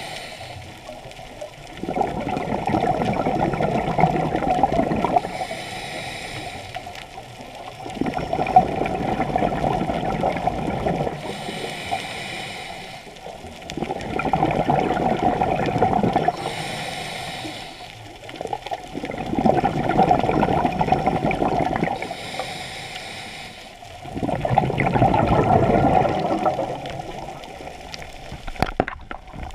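Scuba diver breathing through a regulator: a short hissing inhale, then a long rush of exhaled bubbles, repeating about every five seconds for five breaths.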